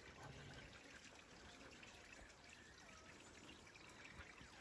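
Near silence: a faint trickle of running water.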